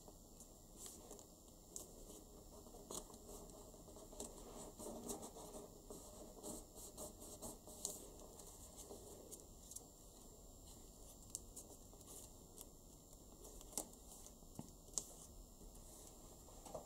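Faint rustling and crinkling of origami paper as fingers fold and press creases into it, with scattered small clicks and taps. The busiest stretch comes in the first half, and a few sharper ticks come near the end.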